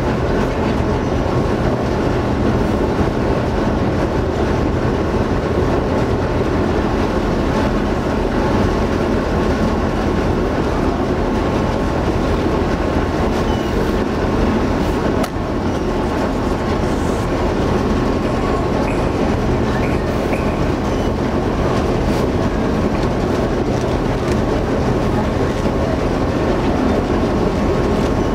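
Steady low rumble and hum of the icebreaker Aurora's engines and ship machinery as she gets under way, with a faint steady whine above it.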